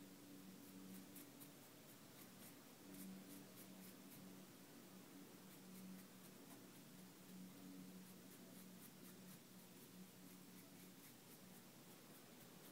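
Faint scratching of a Sharpie permanent marker stroked over a rubber-banded T-shirt in short repeated strokes, over a faint steady low hum.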